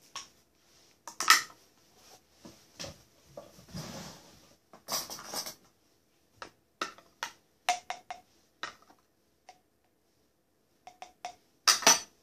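Small hard household objects being handled and set down: irregular clicks, taps and clatters, loudest about a second in and again near the end, with a short scuffling stretch in the middle.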